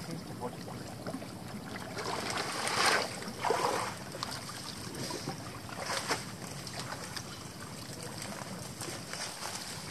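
Pond water sloshing and splashing as a man wades chest-deep and works among the weeds, with louder splashes about three seconds in and again near six seconds.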